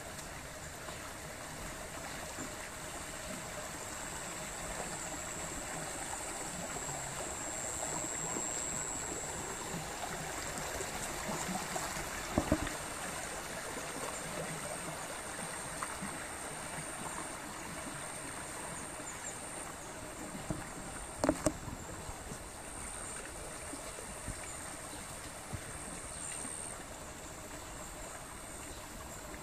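A small stream flowing steadily, with a continuous rushing hiss of water. Two brief knocks, one near the middle and one about two-thirds of the way through.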